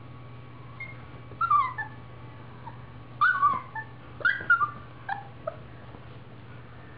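Siberian husky puppy giving short, high-pitched yips and whines, each sliding down in pitch, in four quick clusters between about one and a half and five and a half seconds in.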